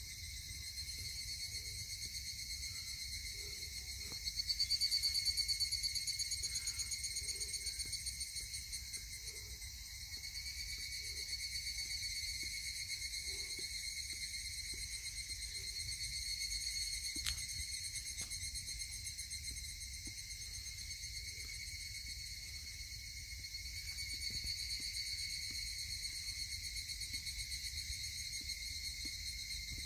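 A dense chorus of cicadas buzzing steadily in several high-pitched layers, swelling louder about five seconds in and again near the end.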